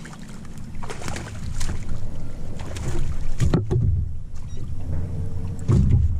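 A chain pickerel being fought and landed from a small aluminum boat: a series of knocks and splashes, with heavy thumps on the hull about halfway through and again just before the end as the fish is swung aboard.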